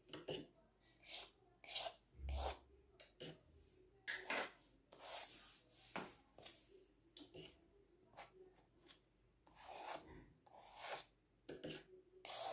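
Faint, short scraping strokes of a painting tool drawing lines of gold acrylic paint across a painted board, one stroke after another at irregular intervals, roughly one or two a second.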